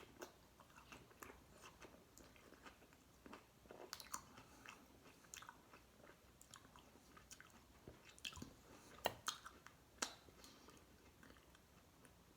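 Close chewing of a crunchy garlic dill pickle: irregular wet crunches, with louder ones about 4, 8 and 9 to 10 seconds in.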